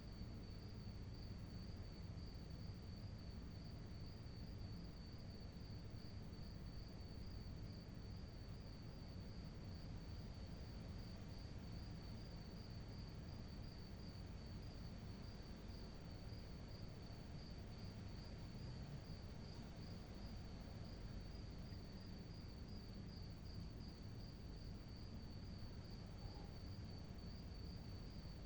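A cricket chirping at night in a steady, unbroken, evenly pulsing high trill, over a faint low background rumble.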